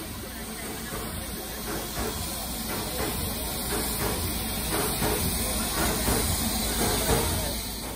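Steam hissing steadily from the standing LMS Stanier Princess Royal class steam locomotive 6201 'Princess Elizabeth', growing slowly louder.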